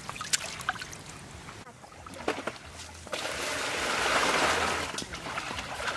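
Water splashing and trickling, louder from about three seconds in, with a few light knocks in the first second.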